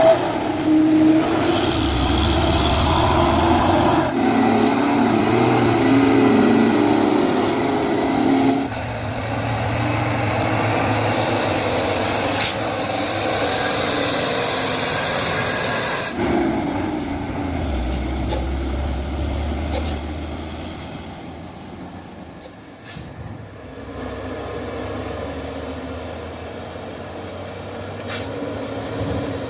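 Dump truck diesel engines roaring as the trucks pass on a steep hill road, with a few seconds of high hissing about halfway through. The sound fades off after about twenty seconds.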